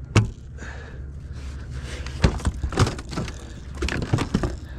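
Irregular knocks and clicks of a striped bass and gear being handled on a kayak while the fish is checked for keeper size, over a steady low hum.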